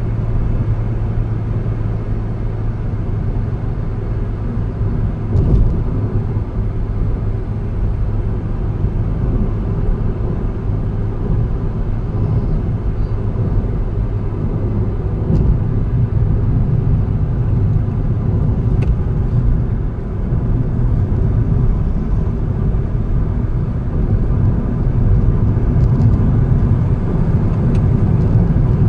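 A car driving on a road, heard from inside the car: a steady low engine hum over tyre and road noise. There is a brief thump about five seconds in, and the sound gets a little louder after the middle and again near the end.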